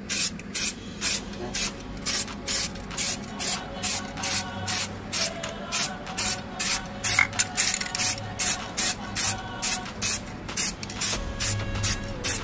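Aerosol spray-paint can sprayed in short, quick bursts, about three a second, laying on a thin coat of paint.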